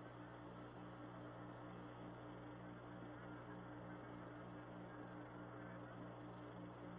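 Near silence: a faint, steady electrical hum under hiss, with a low tone pulsing on and off about three times a second.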